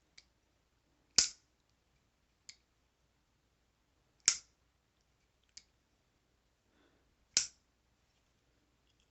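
Boker Kalashnikov Cleaver automatic knife fired open three times, the spring-driven blade snapping into lock with a sharp click about every three seconds. A fainter click comes before each snap as the blade is folded closed and reset.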